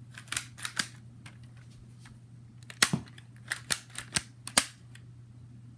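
Lego pump-action shotgun being pumped and fired: a series of sharp plastic clacks and snaps, a few in the first second, then five more between about three and five seconds in.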